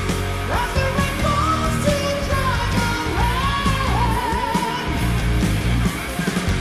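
Heavy metal band playing live, a lead vocal singing long held, wavering notes over the full band.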